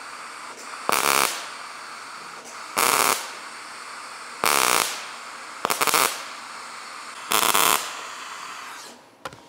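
Wire-feed welder laying tack welds to fill holes in a car's sheet-metal trunk lid: five short crackling bursts of about half a second each, one every couple of seconds, over a faint steady hiss.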